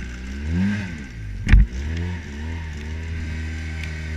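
Side-by-side UTV engine revving up as it pulls away through snow, then running steadily. A single loud thump about a second and a half in.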